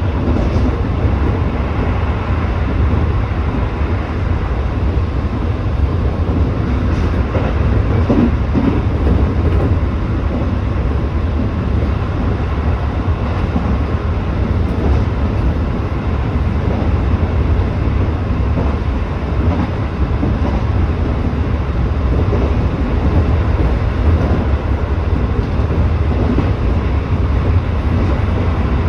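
Tobu 8000-series electric train running along the line, heard from on board: a steady low rumble of wheels and motors on the rails, with a few faint rail clicks.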